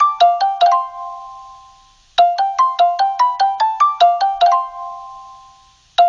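LINE app outgoing-call ringback tone: a bright, marimba-like phrase of quick pitched notes, about five a second, ending on a held note that fades away. It loops: one phrase finishes just after the start, a full one plays from about two seconds in, and the next begins right at the end.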